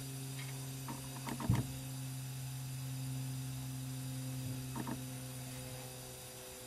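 Steady low electrical hum, with a few light clicks and taps of metal parts being handled, about one and a half seconds in and again near five seconds: a Ford C6 transmission valve body with its kickdown valve and spring.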